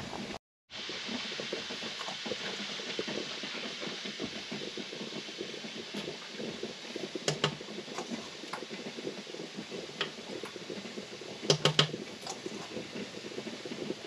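Strawberry-rhubarb jam mixture heating in a stockpot on the stove: a steady hiss with fine crackle, cutting out briefly just after the start. Several sharp metal clicks of a whisk against the pot in the second half, the loudest cluster a couple of seconds before the end.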